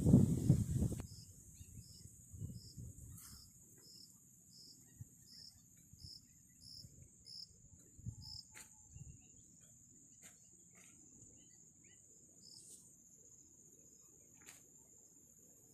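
Insects calling: a steady high-pitched trill, with a run of short, evenly spaced high chirps, about one and a half a second, that stops about eight seconds in. Faint low rustling of footsteps and handling lies underneath.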